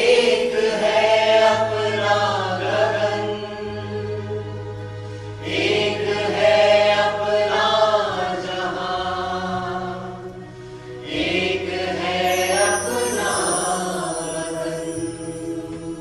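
Solo voices singing a slow song in three long phrases over a backing track with sustained low bass notes.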